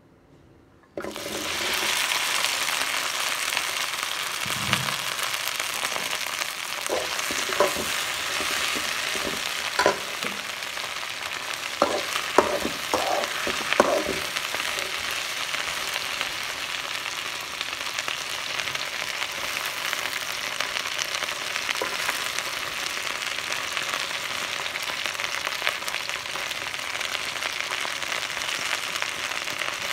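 Sliced okra hitting hot oil in a metal pan, starting a sudden sizzle about a second in that carries on steadily as it fries. Between about 7 and 14 seconds in, a metal spoon clinks and scrapes against the pan several times as it is stirred.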